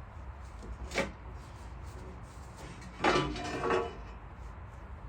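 Metal parts and tools being handled during a motorcycle teardown: a single knock about a second in, then a short clatter of metal with a ringing tone around three seconds in, over a low workshop hum.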